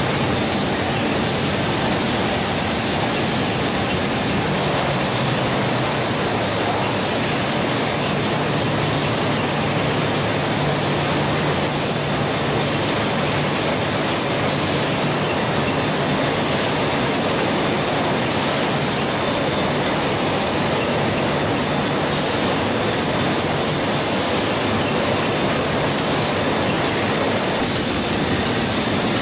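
Steady, loud clatter and hum of running processing machinery.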